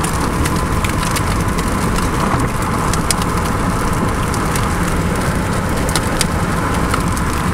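A car driving at speed, heard from inside the cabin: steady road and engine noise with scattered sharp ticks.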